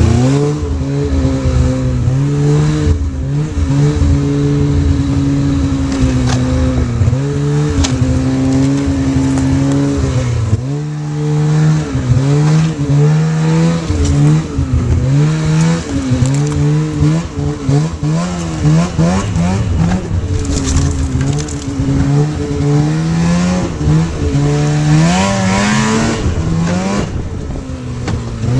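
Polaris snowmobile engine running under way, its pitch rising and falling again and again with the throttle.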